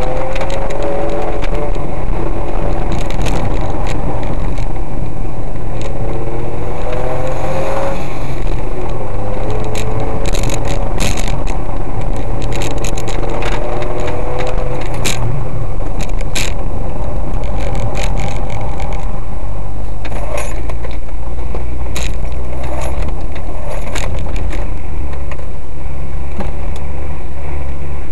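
Smart ForTwo 600's small three-cylinder petrol engine heard from inside the car under hard acceleration, its pitch climbing several times as it revs up through the gears, over loud road and wind noise. Frequent short knocks and rattles come through, mostly in the middle stretch.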